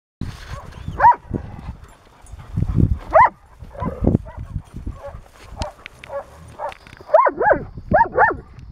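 Dog barking: single barks about a second in and around three seconds, then a quick run of four barks near the end, with a few low thuds between.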